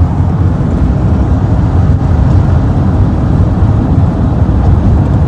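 Steady low rumble of road and engine noise heard inside a vehicle's cab while it drives along the freeway.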